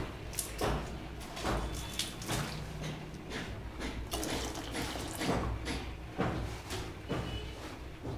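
Water pouring from a plastic cup into a steel pan of milk, with irregular knocks and clinks of the cup and pan throughout.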